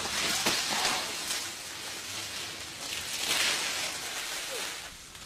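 Palm fronds rustling and shaking, a dry hiss that swells twice, about a second in and again past the middle.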